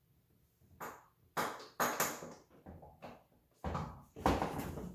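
Hand-tool knocks and clanks as a wrench is worked on the alternator mounting bolts of a Honda D16 engine: a handful of separate sharp hits, the loudest about four seconds in.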